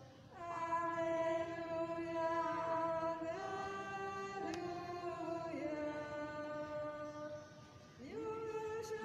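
Liturgical chant sung during Mass: voices holding long, steady notes that move in steps from phrase to phrase, with a short break for breath about a second before the end.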